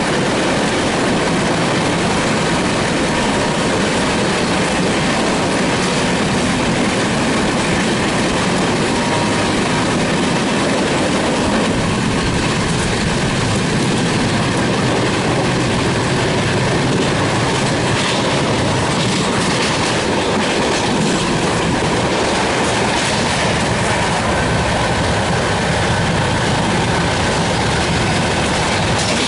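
Express passenger train running past at speed: a steady rush of wheel and rail noise with clickety-clack over the rail joints.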